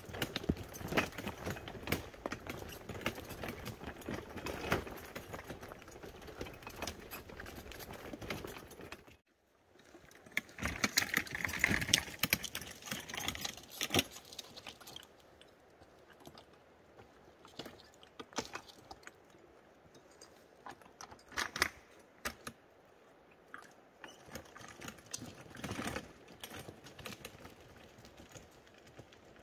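Footsteps on a trail with the clatter and rattle of a pulled hand wagon. About nine seconds in the sound cuts off abruptly, then comes back quieter, with scattered separate clicks and rattles.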